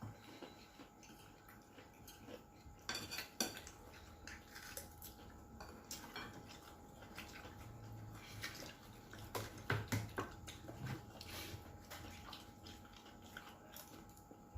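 Spoons and plates clinking now and then as people eat, with a few sharper clinks about three seconds in and again around ten seconds in.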